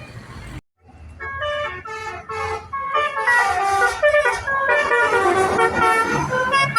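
Bus 'telolet basuri' musical horn playing a quick tune of stepping notes, several tones sounding together. It starts about a second in after a short break and grows louder from about three seconds in.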